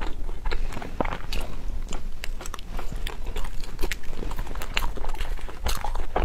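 Close-miked chewing and mouth sounds of someone eating a dessert: an irregular run of short clicks and smacks, several a second.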